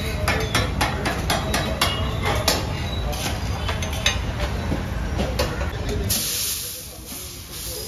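Street-stall clatter: quick metal clinks and knocks over a steady low traffic rumble. About six seconds in comes a loud hiss lasting a second and a half, as water is sprayed onto the hot iron dosa griddle.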